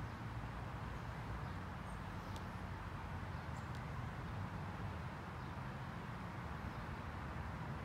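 Steady outdoor background rumble, with a couple of faint, short high sounds about two and three and a half seconds in.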